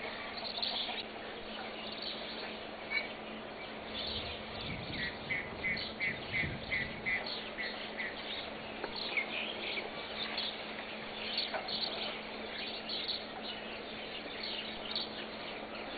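Small birds chirping and twittering, with a quick run of about eight repeated notes in the middle, over a faint steady hum.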